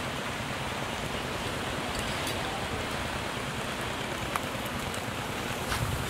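Steady rushing hiss like rain or running water, with a faint click or two of a metal spoon against a jar near the end.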